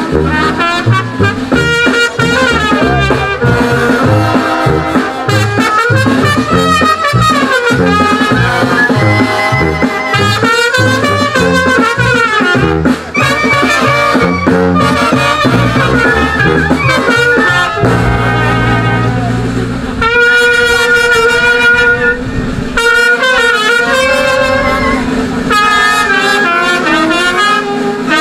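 Brass band music, with trumpets and saxophones carrying a melody over a steady bass line: the band accompanying the water-dogs' ceremony around the cross.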